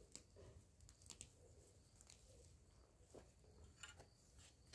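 Near silence, with a few faint, scattered clicks and soft rustles.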